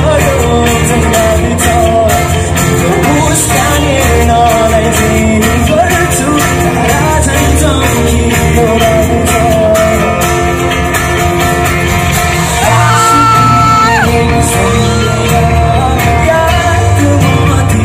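Live rock-pop band playing: a male lead voice singing over acoustic and electric guitars, bass and drums, with one note held for about a second and a half near the end.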